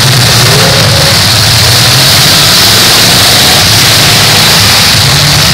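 Engines of several battered full-size demolition derby cars running loud and steady, with some revving as the cars push against each other.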